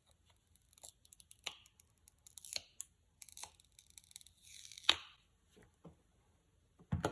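Broken screen protector being peeled off an iPhone 13 screen with fingernails: a run of crackling, ticking and tearing sounds, with one louder snap about five seconds in.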